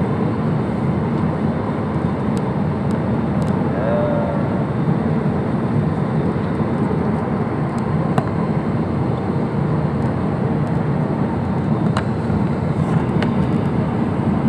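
Steady low rumble of cabin noise inside an Airbus A320 airliner on final approach: jet engines and airflow, heard through the cabin, with a few faint clicks.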